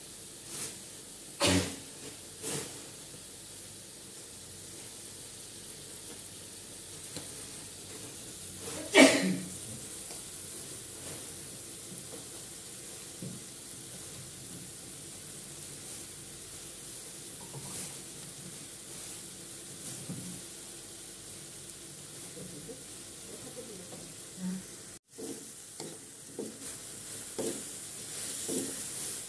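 Diced pork sizzling as it fries in an aluminium wok, a steady hiss. A few short loud sounds break in, the loudest about nine seconds in, and near the end a wooden spatula stirs and knocks the pieces around the pan.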